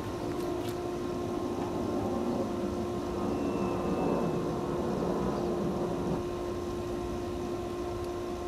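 A hot 80CrV2 steel knife blade quenched in a can of oil to harden it, the oil bubbling and hissing around the blade, over a steady roar with a constant low hum.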